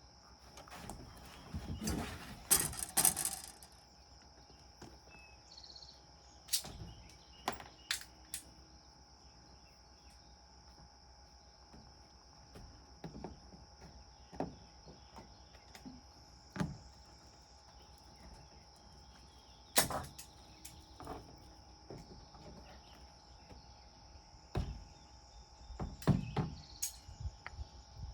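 Scattered knocks and clicks, a few every several seconds, with a cluster of them about two to three seconds in. A steady high-pitched insect drone runs underneath.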